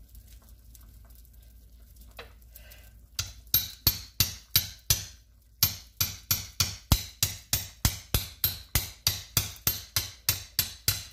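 A knife chopping through a corn cob on a cutting board: a rapid run of sharp chops, about three a second, starting a few seconds in, with a brief pause after the first handful.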